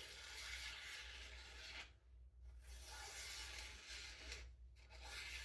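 Faint, soft rubbing of hands and a freshly sharpened kitchen knife as the edge is checked for leftover burr, dropping out twice briefly.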